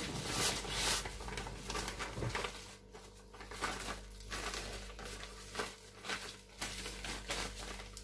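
Sand pouring from its plastic bag into a basin of potting soil, loudest in the first second. Then the bag crinkles and a gloved hand rustles through the soil, mixing the sand in.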